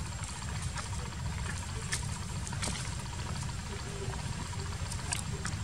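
Steady low rumbling background noise with a few faint, sharp ticks.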